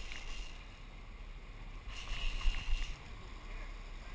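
A sport-fishing boat's engine running low and steady under wind and water noise, with a brief hissing swell about halfway through.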